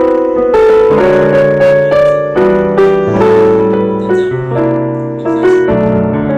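Background piano music playing a slow melody over sustained chords.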